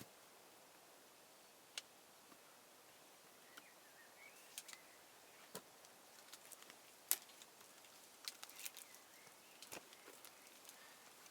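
Quiet forest ambience broken by scattered sharp clicks and snaps of wood and twigs, thickening in the second half, with the loudest snap about seven seconds in. Faint bird chirps sound now and then.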